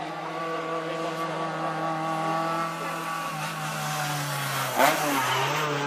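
Renault Clio Cup's four-cylinder engine running hard through the slalom, holding steady revs and then dropping in pitch about three seconds in. A sharp crack just before the end, after which the revs climb again.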